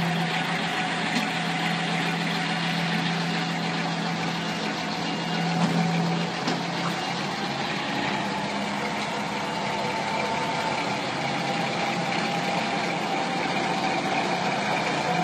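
Fiat 180 NT truck's diesel engine running steadily at low revs. Its pitch rises slightly about two-thirds of the way through and then settles back.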